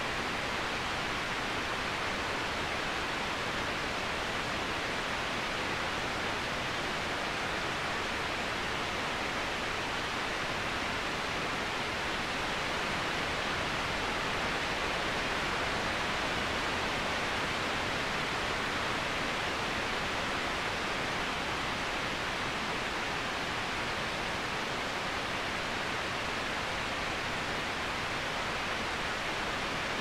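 Waterfall: a steady, unbroken rush of falling water, an even hiss with no breaks or changes.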